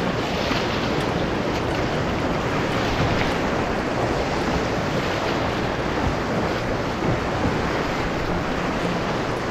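Big whitewater rapids rushing and churning around a canoe at high water, a steady loud wash of water with wind buffeting the microphone.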